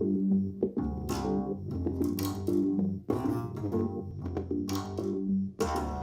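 Music with guitar and bass, played back through a Sony SRS-XB series portable Bluetooth speaker and picked up by a microphone for a sound test.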